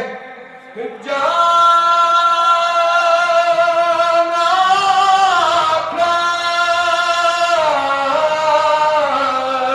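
A man singing a devotional naat into a microphone. After a brief pause he draws out one long held note from about a second in, which rises around the middle and steps back down near the end.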